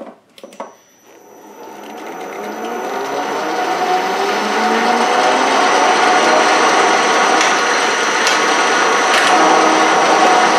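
South Bend 13-inch lathe switched on with a couple of clicks, then spinning up with a rising whine over about four seconds to a steady run. Its straight-cut outboard change gears run dry, with no lube and no cover fitted, which makes the gear train noisy.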